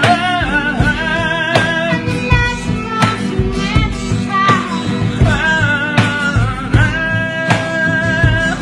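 Singing over a rock-ballad backing of guitar and drums, with a steady beat.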